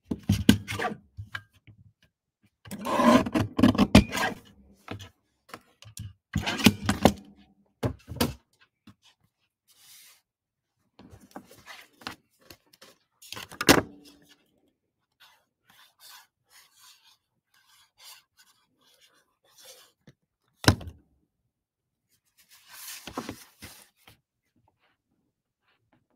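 A paper trimmer cutting a strip off a cardstock panel: a few scraping strokes in the first several seconds. Then paper is handled and rubbed on the desk, with a sharp click about 14 seconds in and a single thump about 21 seconds in.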